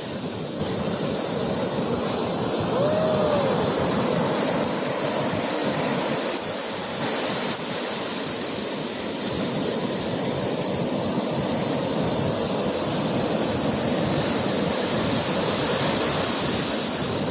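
Ocean surf breaking and washing up on a sandy beach, a steady rushing roar of waves.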